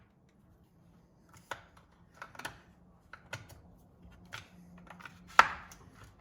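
Sparse, light clicks and knocks of small parts and hand tools being handled while a trimmer power head is put back together, the sharpest knock about five seconds in.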